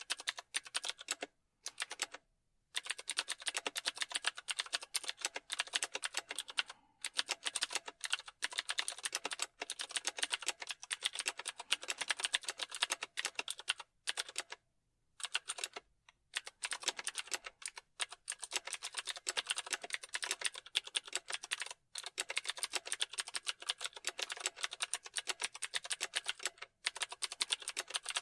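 Fast typing on a computer keyboard: rapid key clicks in long runs broken by several brief pauses, the longest about halfway through.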